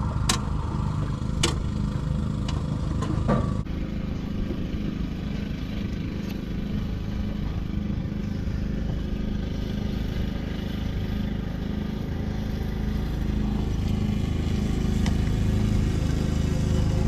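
An engine running steadily at a low, even speed, with a few sharp clicks of metal in the first few seconds.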